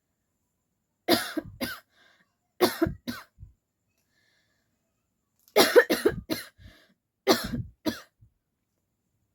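A woman coughing on purpose, put-on coughs for a coughing challenge, in four short bouts of several sharp coughs each, with pauses of a second or more between the bouts.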